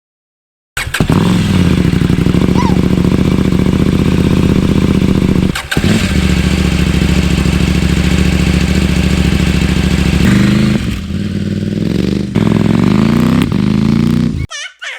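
KTM 790 Adventure R's parallel-twin engine running loud through a catless link pipe and an Akrapovic silencer with the baffle removed. It starts abruptly under a second in, runs mostly steady with a brief break just before six seconds, and from about ten seconds in the revs climb repeatedly before it cuts off suddenly.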